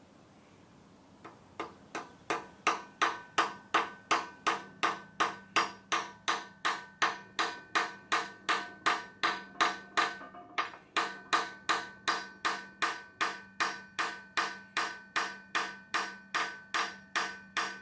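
A hammer lightly tapping a 1.5 mm oil gallery restrictor into its bore in the deck of an RB26 cast-iron block. It makes a steady run of sharp metallic taps, about two and a half a second, with a short ring after each. The tapping starts about two seconds in and pauses briefly near the middle.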